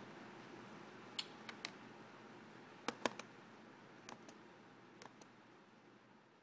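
Faint clicks from laptop keys or a trackpad, coming in small groups of two or three, over quiet room hiss.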